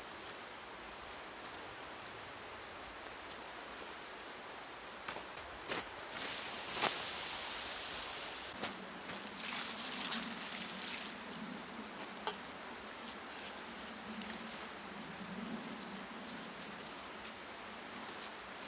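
Steady rushing of a river running past, with a few short sharp clicks and knocks over it.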